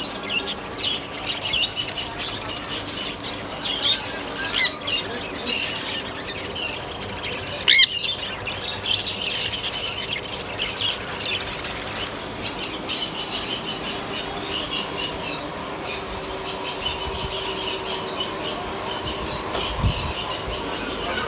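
Many birds chirping and squawking together, with one loud squawk about eight seconds in.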